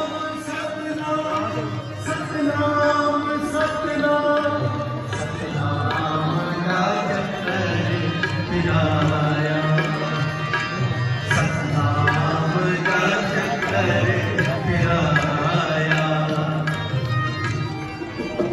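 Sikh devotional kirtan: tabla drumming under a sustained, held melody line.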